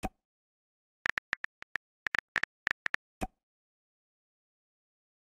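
Smartphone messaging-app sounds: a short pop as a chat message arrives, then about a dozen quick keyboard tap clicks over two seconds, and another pop when the message is sent, with a third pop at the very end.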